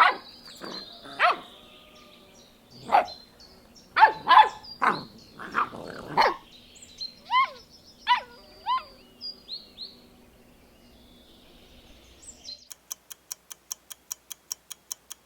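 Puppies yapping in a quick series of short, high barks, with a few yelps that slide up and down in pitch, between about 7 and 9 seconds in. Near the end a fast, even ticking starts, about five ticks a second.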